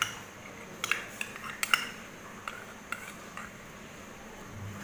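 Metal spoon clinking against a mixing bowl: a few sharp clinks about a second in, then fainter taps as the spoon works melted ghee into the dry dough mixture.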